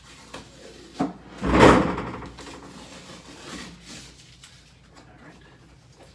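Wooden sauna wall parts handled at floor level: a sharp click about a second in, then a loud wood-on-wood scrape that fades into lighter rubbing and small knocks.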